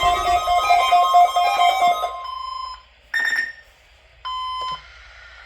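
Electronic alarm melody of quick repeated notes that stops about two seconds in, followed by three short electronic beeps.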